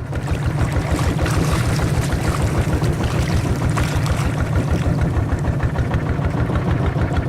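A river boat's engine running loud and steady, a rapid even chugging with a noisy wash over it.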